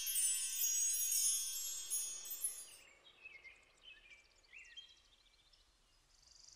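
Shimmering chimes, many high bell-like tones ringing together like wind chimes, fading out about three seconds in, followed by a few faint high chirps.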